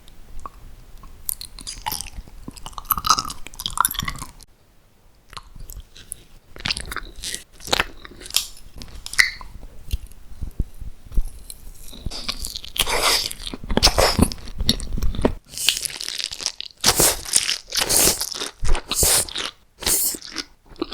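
Close-miked eating: crisp food bitten and crunched in quick, crackling chews, with a short lull about four seconds in and denser crunching in the second half.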